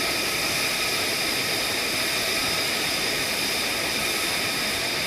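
F-35A Lightning II jet engine running steadily: an even rush of noise with a high, steady whine, neither rising nor falling.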